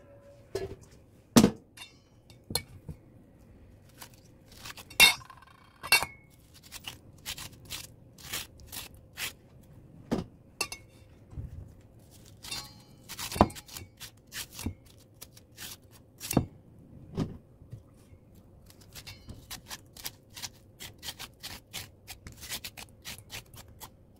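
Metal spoon clinking and tapping against a stainless steel bowl in many irregular sharp clicks while the seeds and pulp of an old cucumber are scraped out.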